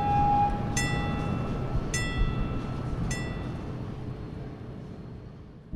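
Train rumbling and fading away, with a held whistle tone at the start and three ringing bell strikes about a second apart.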